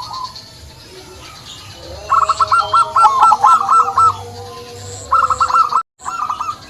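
Zebra dove (perkutut) cooing: a fast, rolling, stuttering run of coos starting about two seconds in, then a shorter run near the end. The sound cuts out briefly just before the end.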